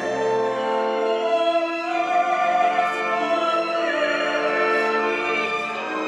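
A tenor and a soprano singing a Viennese song as a duet with full orchestra accompaniment. The notes are held with vibrato.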